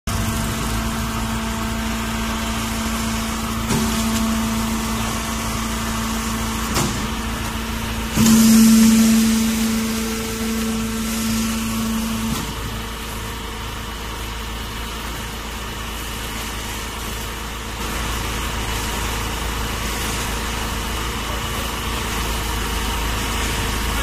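Bag silage baling press running with a steady mechanical hum, a few sharp knocks, and a louder stretch for several seconds about a third of the way in.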